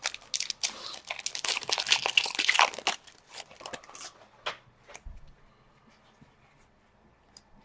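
A trading-card pack's wrapper being torn open and crinkled for about three seconds, followed by a few light clicks of cards being handled.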